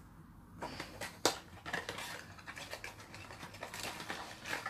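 Small cardboard product box being opened and handled: scattered light clicks and scrapes of card.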